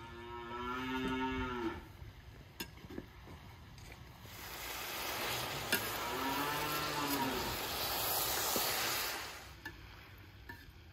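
Cattle mooing twice, one long call right at the start and another about six seconds in. Between and under them, onions and meat in a pot over the fire sizzle loudly for several seconds while a metal skimmer stirs them, clicking against the pot a couple of times.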